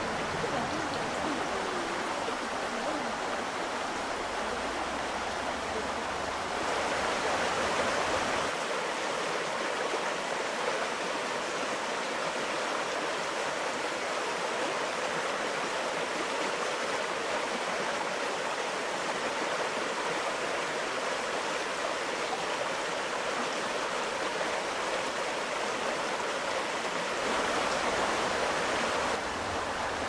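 Mountain stream water rushing steadily over rock ledges, swelling a little louder twice.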